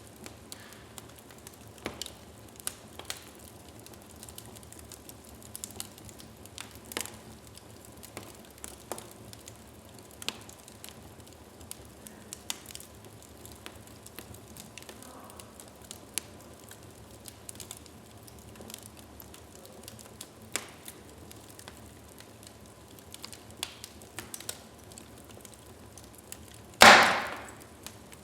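Wood fire burning in a fireplace, crackling with scattered sharp pops over a faint steady hiss. One much louder crack near the end dies away over about half a second.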